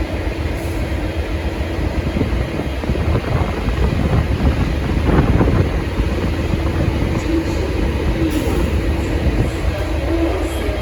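Diesel engine of a V/Line N class locomotive (an EMD 645 V12 two-stroke) running with a steady low rumble and a faint steady hum, swelling briefly about five seconds in.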